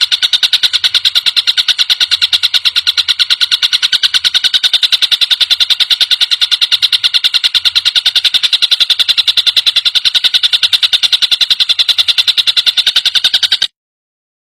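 Tengkek buto kingfisher giving a rapid, even, high-pitched rattling trill of many notes a second. It runs without a break and cuts off suddenly near the end.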